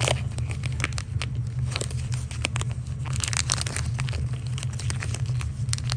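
Packaging being handled and torn open by hand: irregular crinkling, crackling and small clicks, busiest a little past the middle, over a steady low hum.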